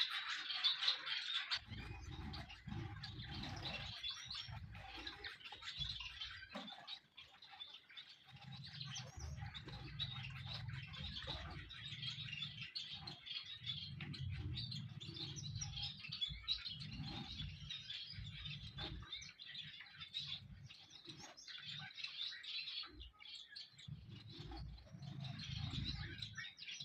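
Long-tailed finches chirping rapidly and almost without pause, with stretches of low rumbling noise on and off underneath.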